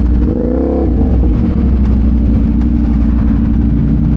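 Motorcycle engines running in slow-moving traffic, with one engine briefly revving up and back down about half a second in.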